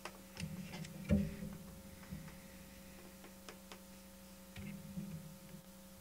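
Steady electrical hum with scattered light clicks and taps, and one louder knock about a second in.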